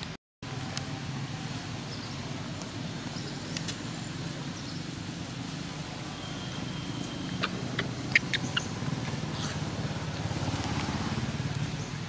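Steady low outdoor rumble, with a brief dropout just after the start and a few sharp clicks about eight seconds in.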